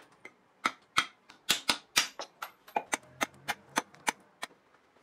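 Homemade bushcraft knife, made from a car leaf spring, striking hard: about fifteen sharp chopping hits, some ringing briefly, as the blade cuts through a nail on a steel anvil block and into wood on a stump. The hits stop about four and a half seconds in.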